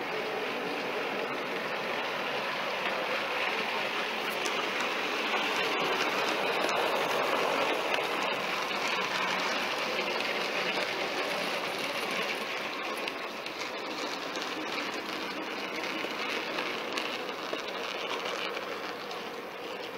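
OO gauge model goods train running past on the layout's track: a steady whirring rattle of wheels on rail. It grows louder toward the middle as the wagons pass close by, then slowly fades.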